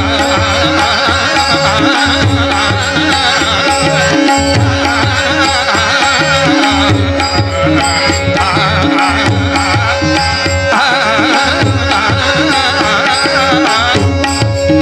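Marathi devotional abhang music: a hand drum keeps a steady beat under a wavering melodic line, with no clear sung words.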